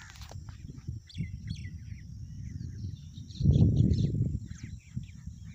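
Small birds chirping, short scattered calls, over a low rumble on the microphone that swells loudest about three and a half seconds in.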